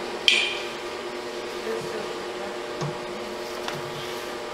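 Metal clanking as the motor and bracket are handled inside a pottery wheel's steel case: one sharp, ringing clank about a third of a second in, then a couple of lighter knocks later on, over a steady background hum.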